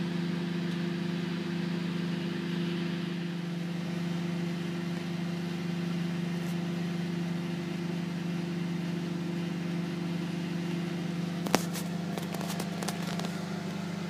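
LG convection microwave oven running: a steady hum from its transformer and cooling fan as it heats a bowl of lemon water. About eleven and a half seconds in there is one sharp click, followed by a few lighter clicks and rustles.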